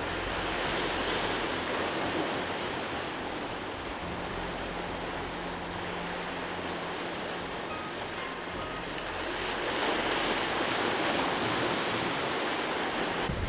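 Sea surf breaking and washing over shoreline rocks: a steady rush of white water that swells louder about a second in and again near the end.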